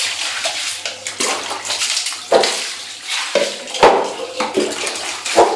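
Water splashing and running on a wet tiled floor as dogs step about in it, with a few sharp splashes or knocks standing out.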